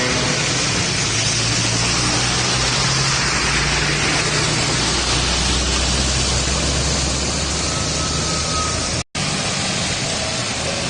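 Loud, steady roar of heavy highway traffic: low truck-engine rumble under a wash of tyre and wind noise. It cuts out for an instant about nine seconds in.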